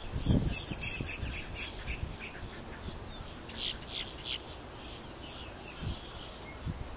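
Black-necked stilt calling: a run of short, sharp, high yipping notes, about four or five a second, loudest in a group of four about three and a half seconds in, then fading. A few low thumps sound near the start.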